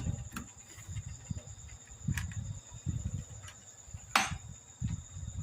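A steady high-pitched trill or whine runs throughout, under scattered low knocks of handling on the workbench and one sharp click about four seconds in.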